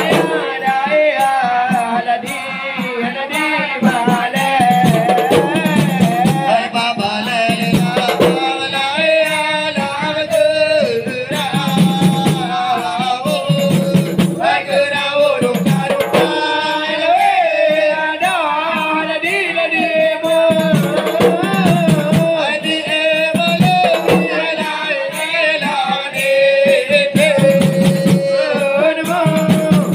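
An ensemble of Acehnese rapa'i frame drums beaten together in a fast, steady interlocking rhythm, with voices singing over the drumming.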